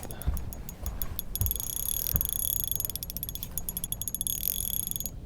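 Spinning fishing reel being cranked: a fast, even run of ticks with a thin high whine from the gears.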